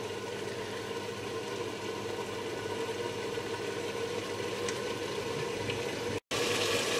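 Grated tomatoes with onion and peppers simmering in a covered frying pan under a glass lid: a steady bubbling hiss. Near the end the sound drops out for an instant and comes back louder.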